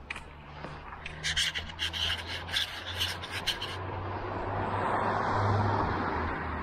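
Rapid, rhythmic scraping strokes, about five a second for two and a half seconds, like something rasped against ice or hard snow. They are followed by a smooth rising and fading rush of noise, such as a vehicle passing on a winter street.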